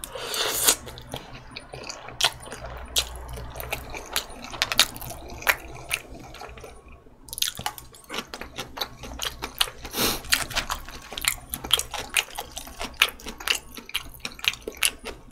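Close-miked eating sounds: a short slurp of spaghetti, then chewing with many quick, wet mouth clicks.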